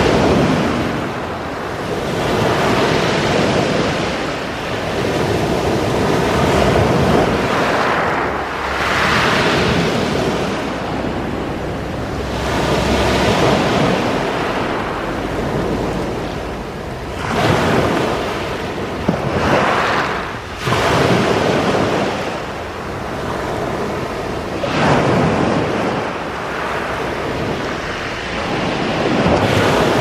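Sea waves breaking and washing up a pebble beach, the surf swelling and easing again every few seconds.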